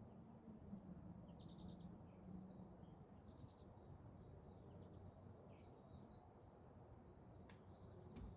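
Faint birds chirping over a low steady background rumble: a short rapid trill about a second and a half in, then scattered short chirps.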